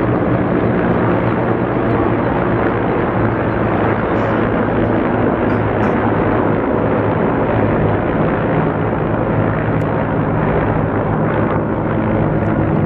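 A formation of Mi-24 helicopters flying past, their rotors and engines making a loud, steady drone.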